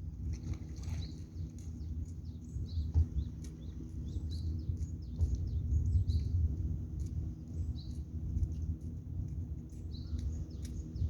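Birds chirping in many short, repeated calls over a steady low rumble.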